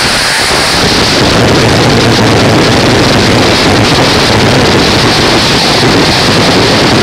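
Harsh noise wall music: a loud, dense, unbroken wash of rumbling, hissing static with no beat, melody or change in level.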